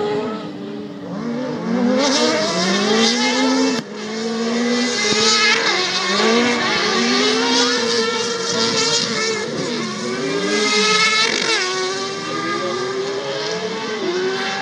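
Several autocross race cars' engines revving hard on the circuit, their overlapping pitches climbing and dropping as the drivers accelerate and shift. There is a brief dip about four seconds in.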